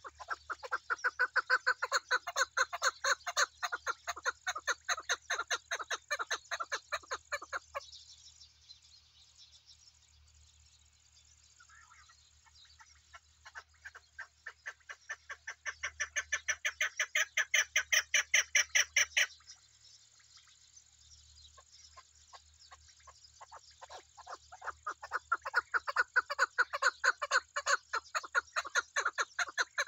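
Chukar partridge calling: long runs of rapid, repeated chuck notes, about seven a second, each run building in loudness and then fading. Three runs, with short pauses between them.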